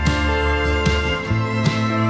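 Instrumental background music: sustained melodic notes over a changing bass line, with a soft, steady beat.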